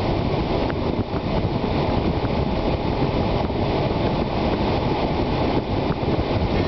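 Steady rush of air from the car's air-conditioning vents blowing onto the microphone inside the cabin, over the low noise of the running Subaru Forester. A few faint clicks from the head unit's buttons being pressed.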